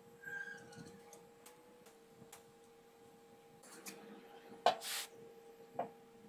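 Steel parts knocked on a steel workbench: a sharp metallic clank about two thirds in and a lighter tap about a second later, as a square steel tube is set on a steel bracket. A brief faint scrape near the start and a steady faint hum lie underneath.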